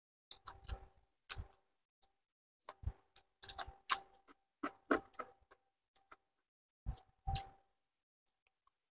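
Eating sounds close to the microphone: chewing and crunching of chicken feet and fingers working rice on plates, heard as irregular short clicks and crunches with gaps of quiet between.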